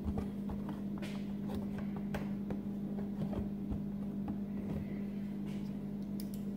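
A steady low hum, with a few faint taps and scrapes as a box cutter is handled against a cardboard box.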